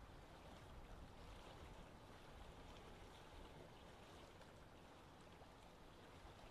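Near silence: faint, steady background noise with no distinct sound.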